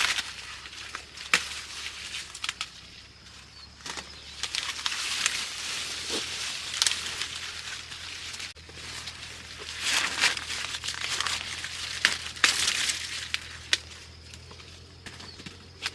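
Dry corn leaves and husks rustling and crinkling as they are handled, in uneven swells, with scattered sharp snaps.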